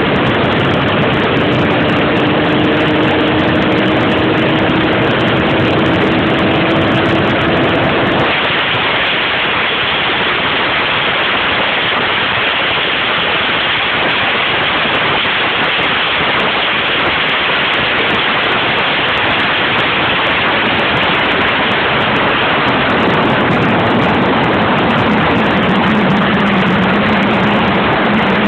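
A motorcycle at highway speed, heard from the rider's seat: a steady rush of wind over the microphone with the engine note underneath. The engine note climbs slowly for about eight seconds, then the sound changes abruptly, and a lower steady note comes in near the end.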